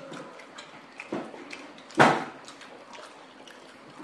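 Light clicks and clatter of plates and fingers while people eat at a table, with a sharper knock a little after one second and a loud single knock about two seconds in.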